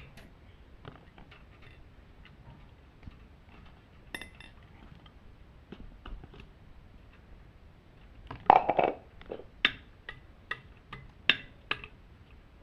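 Small metal clinks and taps of ceiling fan parts and screws being handled during assembly, with a louder rattle about two-thirds of the way through, then a few sharp clicks.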